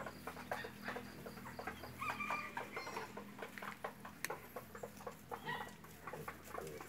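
Domestic chickens clucking in short, scattered calls, with a run of clearer pitched calls about two seconds in, over a faint steady low hum.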